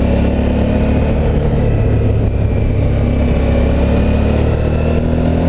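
Suzuki V-Strom motorcycle engine running at steady road revs, its pitch drifting only slightly, with wind noise.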